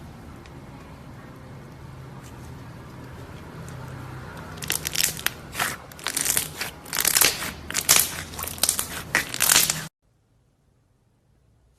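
Slime being squeezed and pressed, giving a dense run of crackling, crunchy pops that starts about halfway through. The pops cut off abruptly near the end.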